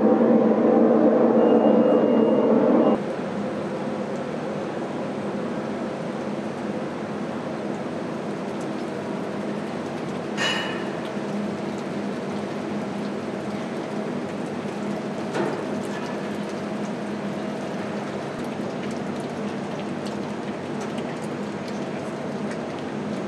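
Loud, dense roar of a foundry melting furnace with its burner firing, cutting off sharply about three seconds in to a quieter, steady hum of foundry machinery as molten metal pours from the furnace spout. Two brief knocks are heard in the middle.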